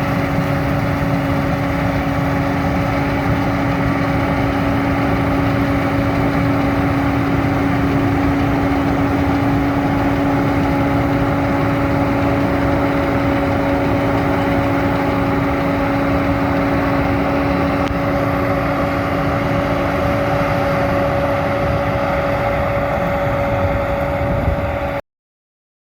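John Deere 9500 combine running steadily while harvesting oats: a constant machine drone with a steady whine over it. It cuts off suddenly near the end.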